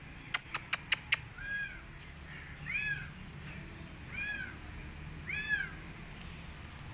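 A kitten meowing four times, each call rising then falling in pitch, about a second and a half apart. A quick run of five sharp clicks comes in the first second and is louder than the meows.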